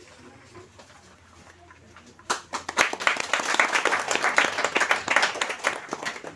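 A crowd of people clapping. It starts about two seconds in and dies away near the end.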